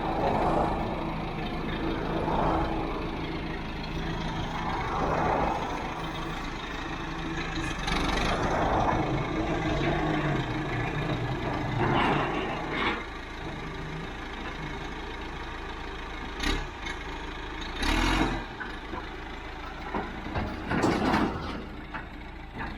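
The diesel engine of a heavy forestry machine (a ground saw) running as it backs slowly off a trailer, its revs swelling and easing several times. In the second half come several sharp metallic clanks.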